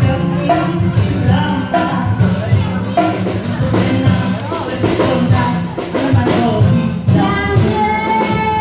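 Live dangdut band: women singing through microphones over acoustic guitar and drums, with a long held sung note near the end.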